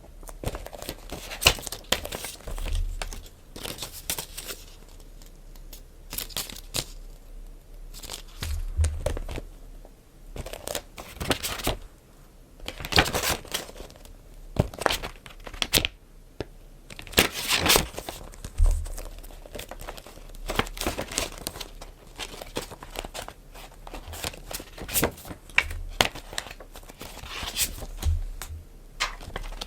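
Packaging being handled to unwrap a book: irregular crinkling, rustling and tearing, with a few soft thuds.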